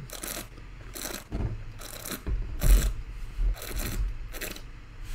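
A wine taster drawing air through a mouthful of red wine and swishing it around, making a series of about six short slurping hisses, roughly one a second.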